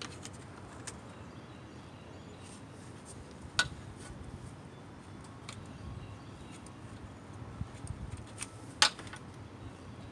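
Sharp plastic clicks and taps as a car's plastic grille and radiator cover panel are handled and screws are set into them. Two clicks stand out, about three and a half seconds in and near the end, and the rest are a few lighter ticks over faint low background noise.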